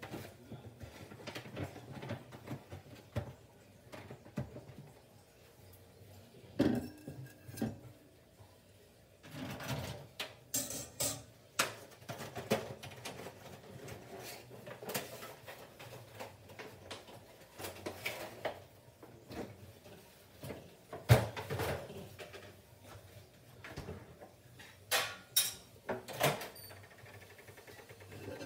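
Off-and-on kitchen handling noise: scattered knocks, clicks and clatter of doors, dishes and utensils, the loudest knock about two-thirds of the way through. Among them a microwave door is opened.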